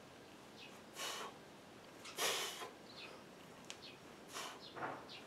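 A man breathing out in short, forceful huffs from the effort of one-arm overhead kettlebell presses. There are four of them, about one a second, the last two close together near the end.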